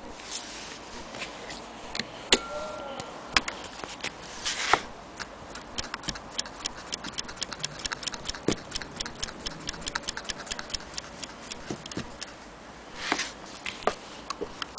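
Willcox & Gibbs chain-stitch sewing machine stitching a red strap, its needle mechanism ticking fast and evenly for several seconds through the middle, with a few separate clicks and knocks before and after.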